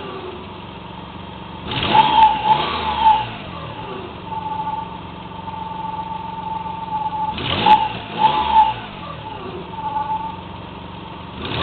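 Nissan Pathfinder engine idling and revved in two quick throttle blips, one about two seconds in and another near eight seconds, each rising and falling back to idle. The owner is unsure whether the noise it makes is lifter tick or engine knock.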